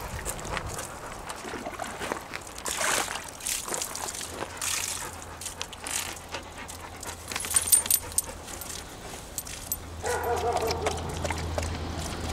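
A Doberman lapping and splashing water in a wheelbarrow, with irregular sloshes and slurps, and a few sharp metallic clinks about eight seconds in. From about ten seconds in, a dog whines in a wavering pitch.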